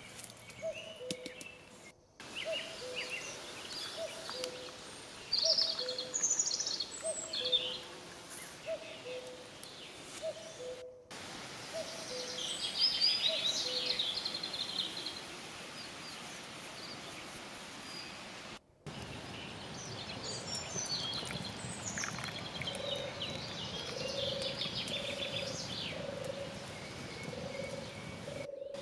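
Forest birdsong: songbirds chirping and trilling over a low two-note call that repeats about once a second. The sound drops out briefly at a few edits.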